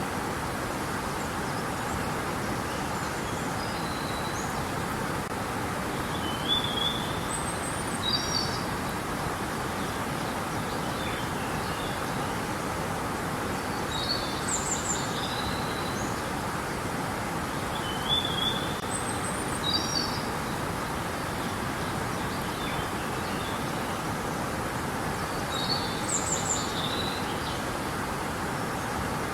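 River water flowing in a steady rush, with small birds chirping in short high bursts every few seconds.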